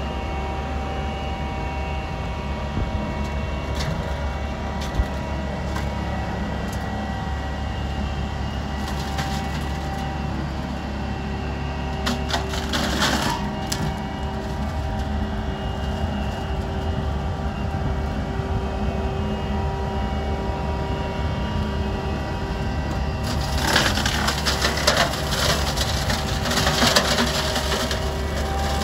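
McConnell 8085TT flail hedge cutter on a Fendt 716 Vario tractor running steadily, its flail head crackling and splintering as it shreds hedge branches. The crackling comes in a burst about twelve seconds in and again, more heavily, over the last five seconds.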